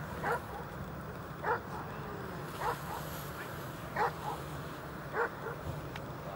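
A dog barking faintly: five short single barks at even spacing, about one every second and a quarter, over a low steady hum.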